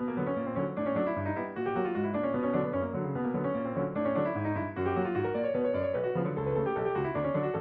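Piano film score, many notes over a steady, regularly repeating bass.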